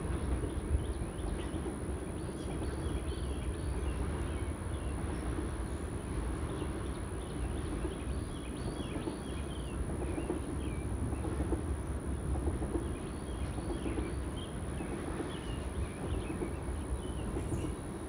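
Freight train of oil tank cars rolling past, a steady low rumble, with birds chirping throughout.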